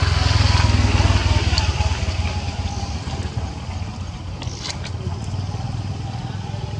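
An engine running, loudest in the first couple of seconds and then slowly fading.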